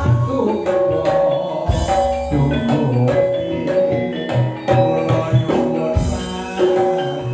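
Campursari ensemble playing an instrumental passage: gamelan-style metallophones ringing over drums, with heavy low drum strokes about two seconds in and again near the end.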